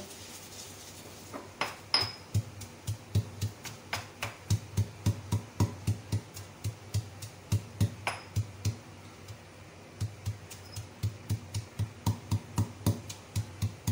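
Stone pestle pounding crisp fried onions in a stone mortar, crushing them to crumbs: dull thuds about three a second, thinning out for a few seconds past the middle before picking up again.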